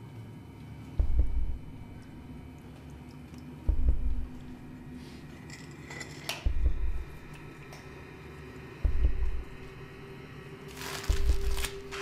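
A film soundtrack's slow, deep booming pulse: five heavy thuds about two and a half seconds apart over a faint held tone. A short scraping, rustling noise comes about a second before the end.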